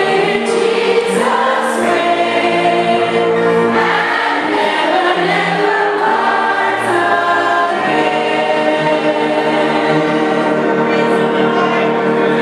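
A choir singing, with long held notes and chords.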